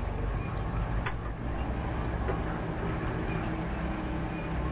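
Steady low rumble of boat engines, with a single sharp click about a second in from the push-button igniter of a stainless steel gas barbecue being worked, and a few fainter clicks after it.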